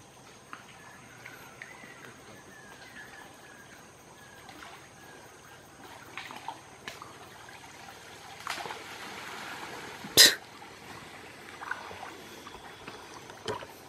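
Water trickling and splashing as a fishing net is hauled up out of a muddy stream by people wading in it, with a sharp, loud splash about ten seconds in.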